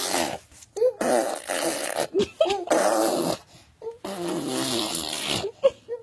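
A baby blowing raspberries, making fart-like buzzing noises with the lips: four wavering buzzes, the longest near the end, with short squeaky breaths in between.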